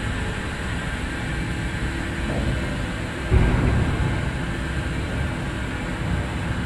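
Steady low rumble and hum of a depot turntable slowly turning a Rhaetian Railway Ge 6/6 II electric locomotive. About three and a half seconds in there is a louder low thud that fades over a second.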